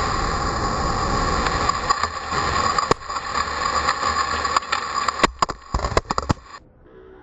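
Aftermath of a dynamite blast inside a reactor building: a continuous loud roar of blast, air and dust, broken by several sharp cracks in the second half, which cuts off abruptly about six and a half seconds in.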